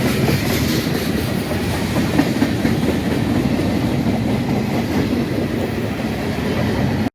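Freight train rolling steadily past, its cars' wheels rumbling and clicking over the rail joints.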